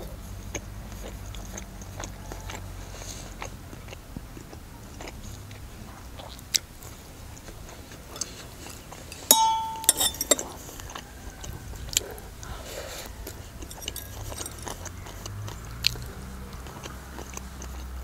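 Close-miked chewing and biting of dolma, stuffed grape-leaf rolls, with scattered small clicks. About nine seconds in, a fork clinks against a dish with a brief ring. A steady low hum runs underneath.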